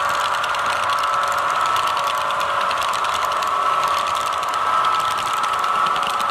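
Model freight train cars rolling past close by, their wheels clicking rapidly over the rail joints above a steady whine.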